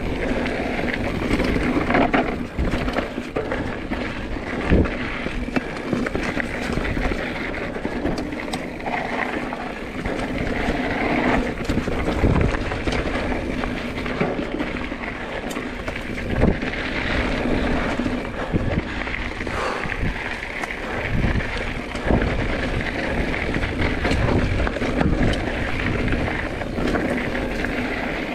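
Mountain bike rolling along a dirt singletrack trail: steady tyre and drivetrain noise, broken by frequent short knocks and rattles as it goes over bumps.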